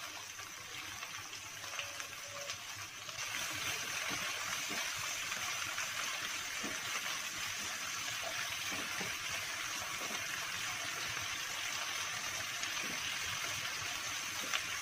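Cut okra frying in hot oil in a nonstick kadai: a steady sizzle that gets louder about three seconds in, with a few light scrapes as it is stirred with a silicone spatula.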